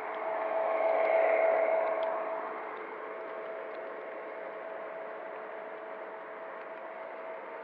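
O scale model train running, its electric motor and gears giving a steady whir over the rolling of the wheels on the track. It swells louder for a couple of seconds about a second in, then settles back.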